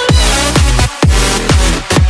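Electronic dance music with a heavy bass kick and a steady beat of about two per second, with a brief drop-out just before one second in.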